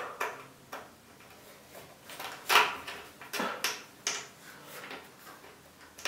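Irregular clicks, knocks and rustles of hands working a cable through a PC case, with one sharper knock about halfway through, as the front-panel HD audio cable is routed down to its motherboard header.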